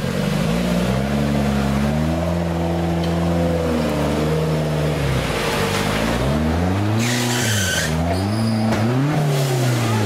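Off-road 4x4 competition truck's engine running at high revs, then revving up and down repeatedly as the truck crawls up over river boulders. A short burst of hiss comes about seven seconds in.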